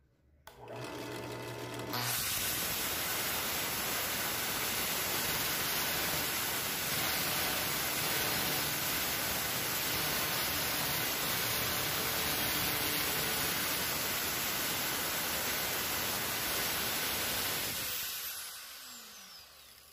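Angle grinder with a thin cutting disc running steadily against a steel bolt that spins in a benchtop drill press chuck, cutting it to length. A hum starts just before the grinder comes up to speed about two seconds in, and near the end the grinder spins down with a falling whine.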